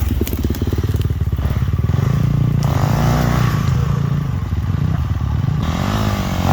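Dirt bike engine running loud, its revs rising and falling a couple of times as the bike is worked over a log, with some clatter.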